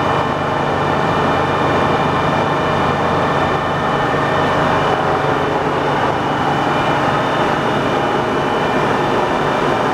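Clausing Colchester 15" x 50" engine lathe running under power: a steady mechanical hum with several high, even whining tones over it.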